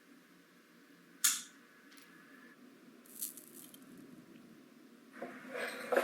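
Small handling sounds of miniature craft work on a bench: a sharp click about a second in, a brief scrape near the middle, and rustling and handling noise near the end.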